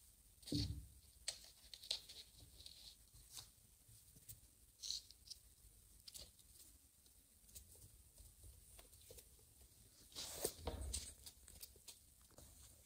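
Faint pattering, scratching and light clicks of kittens' paws and claws on a tiled floor as they play. There is a soft thump just after the start and another about ten seconds in.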